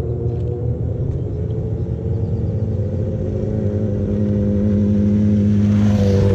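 Sport motorcycles riding up the road, their engines running with a steady drone that grows louder as they approach; near the end the first bike passes close by with a brief rush of noise.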